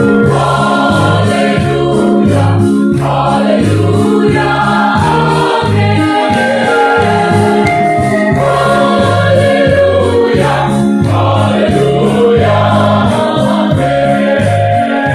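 Mixed choir of men and women singing a gospel song in full voice, over an electronic keyboard accompaniment with a steady pulsing bass.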